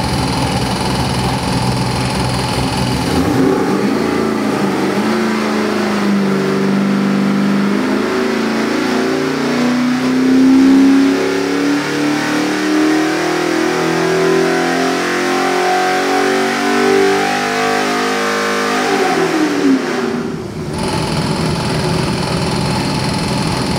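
Chevy LS 441-cubic-inch V8 with Borla stack injection running on an engine dyno. It idles, then is pulled up under load in a steady sweep, its pitch climbing for about fifteen seconds before it drops quickly back to idle.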